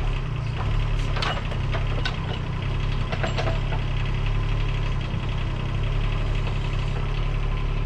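Bobcat skid-steer loader's diesel engine running steadily, with a few short knocks in the first few seconds.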